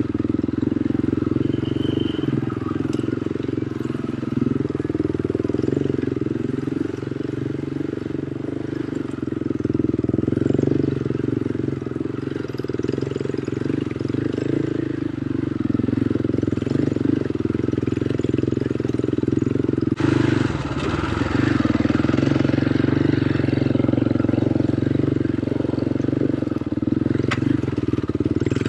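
Quad bike (ATV) engine running steadily on an off-road ride, its pitch wandering a little with the throttle. About twenty seconds in the sound changes abruptly and turns noisier.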